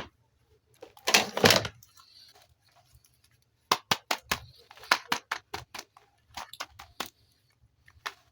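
Toy packaging and plastic toy parts being handled during an unboxing: a short rustling burst about a second in, then a run of sharp clicks and taps, several a second, from the middle on.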